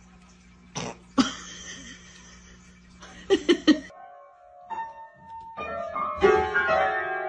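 An upright piano's keys pressed by a dog's paws, starting about four seconds in: loose, overlapping notes that ring on and grow busier. Before that there is a low steady hum with a few short, sharp noises.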